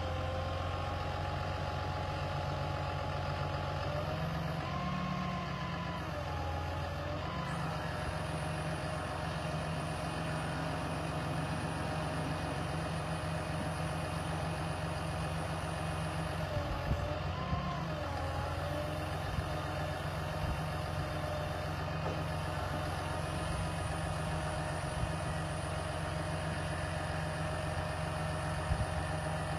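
2013 Ram 5500's 6.7 L inline-six diesel running steadily, with its note shifting briefly twice. There are a few faint clicks near the end.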